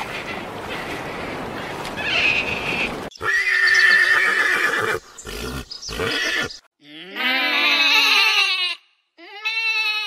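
A high, held animal call a few seconds in, then a horse whinnying with a falling, wavering pitch about seven seconds in, and a sheep starting to bleat near the end.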